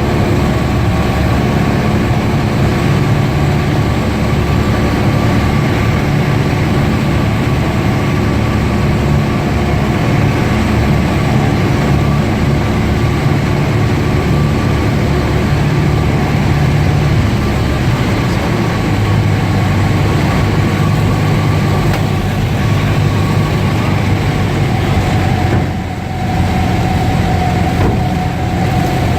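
Light single-engine plane's piston engine and propeller running steadily. The engine note shifts lower about two-thirds of the way through, and there is a brief dip in level near the end.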